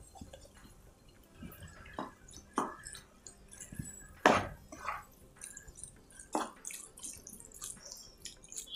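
Roasted, peeled brinjal being added to a tomato-onion masala in a kadai and stirred in with a spatula: soft wet squishing sounds with a few light knocks, spaced out over several seconds.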